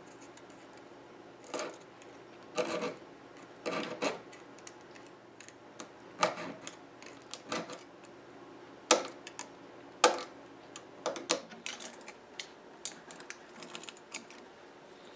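Irregular short scrapes, taps and clicks of hand work on small pieces of wood veneer banding, a pointed knife blade scraping and lifting the thin strips against the old wood surface. The louder clicks fall about nine and ten seconds in.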